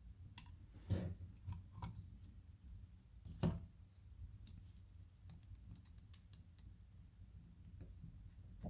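Scattered small metallic clicks and taps of a padlock and hand tools being handled while its C-clip is worked off, with the sharpest click about three and a half seconds in.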